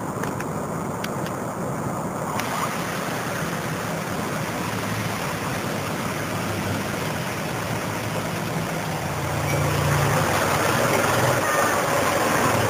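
Street traffic ambience: a steady rush of noise with vehicle engines humming. It grows louder about nine seconds in as an engine runs close by.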